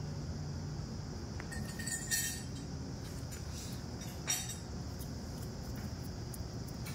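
Two short, sharp clinks, about two seconds and four seconds in, over steady background noise with a low rumble and a steady high hiss.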